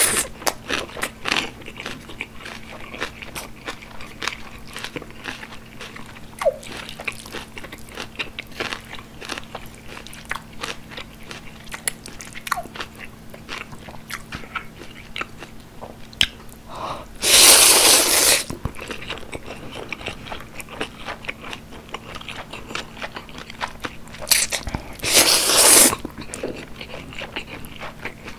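Close-miked chewing of jjajang ramen noodles, with many small wet mouth clicks. Twice, about two-thirds of the way in and again near the end, there is a loud slurp of about a second and a half as a mouthful of noodles is sucked in.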